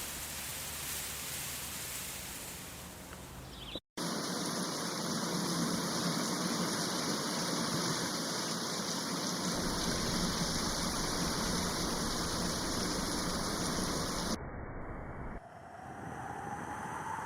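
Steady rushing water noise, in several clips joined with abrupt cuts, including a brief dropout about four seconds in.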